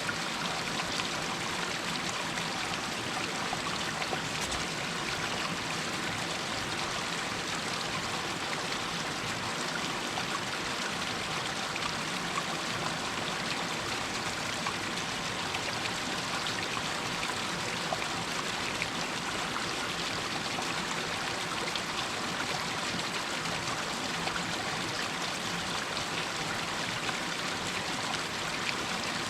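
Stream water running and splashing down over rocks in a steady rush, with small trickles and splashes.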